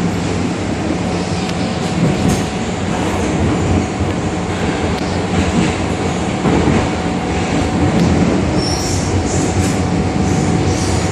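MTR Island Line metro train running along the track with a steady rumble of wheels and running gear; high-pitched wheel squeal comes in over the last few seconds.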